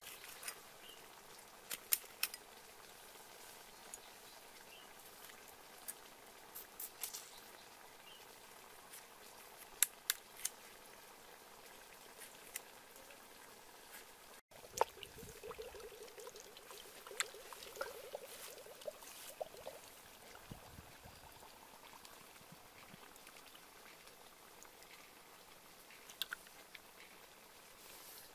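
Cleaver and knife cutting into the husk of a young green coconut on a wooden chopping board: scattered sharp knocks and scrapes, faint overall.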